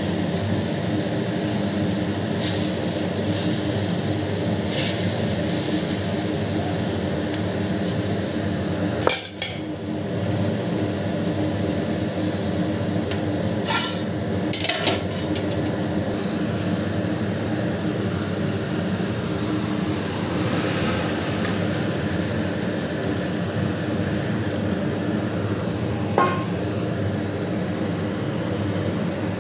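A metal spoon knocks and clinks against an aluminium cooking pot a few times, the sharpest knocks about a third of the way in and about halfway through, over a steady hiss from the cooking pot.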